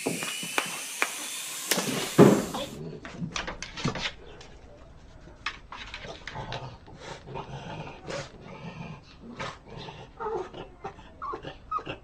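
A dog's claws scratching and scrabbling at a wooden door in quick irregular bursts, with a few brief whines. In the first few seconds, before that, a small toy drone's hiss and thin rising whine.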